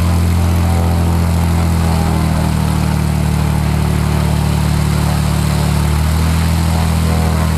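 Light aircraft's engine and propeller running steadily at low taxi power. The engine note changes slightly about two seconds in and again near six seconds.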